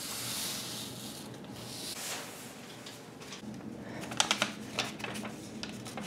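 A sheet of paper sliding across a wooden tabletop, then crisp crackling and rustling from about halfway as the folded paper is opened and handled.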